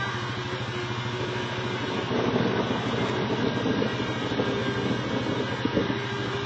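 ATV engine idling steadily under falling rain, a low pulsing hum with an even hiss of rain over it.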